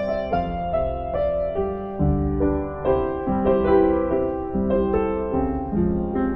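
Background piano music: a gentle melody of notes struck at an even pace over held lower notes.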